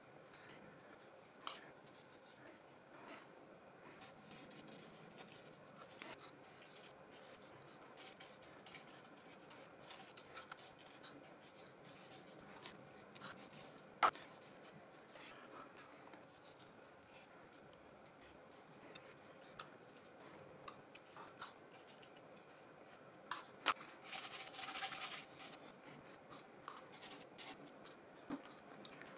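Faint scratching and rubbing of a paintbrush laying paint onto the painting, with scattered small clicks, the sharpest about halfway through, and a longer brushing rasp a little before the end.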